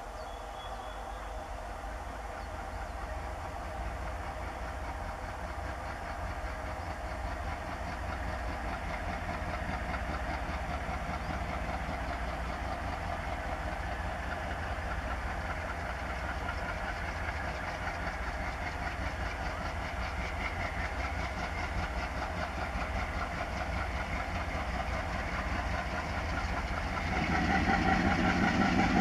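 A pair of ALCO WDM 3A diesel-electric locomotives (16-cylinder ALCO 251 engines) running under power as they approach, growing steadily louder. About 27 seconds in the engine sound gets noticeably louder as the locomotive draws near, working hard and throwing out thick black exhaust.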